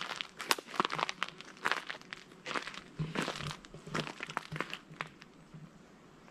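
Footsteps crunching on dry forest-floor litter and dry ground, a crackling step roughly every half second, dying away about five and a half seconds in.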